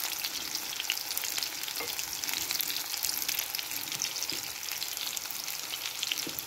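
Beef köfte patties frying in oil in a pan, a steady sizzle with a dense crackle of fine pops as their undersides brown.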